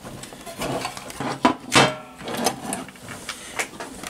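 Amstrad 901 CB radio's case cover being worked loose and lifted off by hand: a string of clicks, knocks and scrapes, loudest a little under two seconds in.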